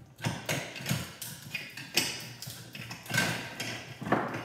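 Screwdriver working at and prying on the parts of an old Kirby vacuum cleaner: about a dozen irregular sharp clicks and knocks, the loudest about halfway through and near the end.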